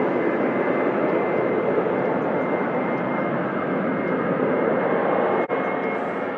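Jet airliner departing at takeoff power: a loud, steady rush of engine noise that begins to fade near the end.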